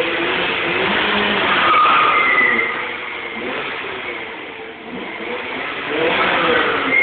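Volkswagen Polo 6N1's 1.0-litre petrol engine revving hard in a burnout, its front tyres spinning and squealing. The squeal rises about two seconds in and again near the end.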